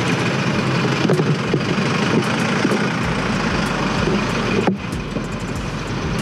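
Royal Enfield Himalayan single-cylinder motorcycle engine running at low speed as it creeps through queued traffic, with the engines of trucks and cars around it.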